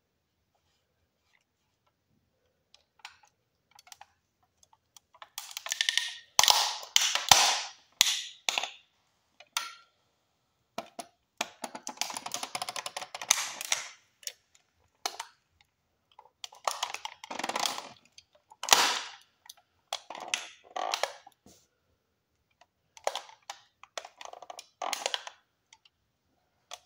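A toy Chevrolet Camaro model car creaking and cracking under the weight of a bare foot: bursts of crackling with sharp snaps, starting about three seconds in and coming in clusters.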